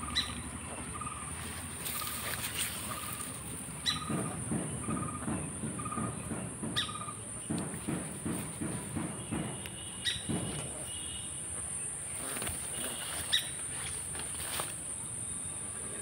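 Steady high-pitched insect drone with an Asian koel calling a short, even note about once a second for the first several seconds. There is some low rustling through the middle.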